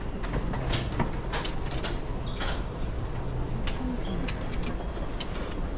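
Immigration hall ambience: a steady low hum with many scattered sharp clicks and knocks, from the automated e-Channel gates and people passing through them.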